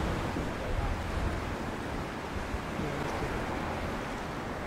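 Wind gusting on the microphone over the steady wash of a choppy sea.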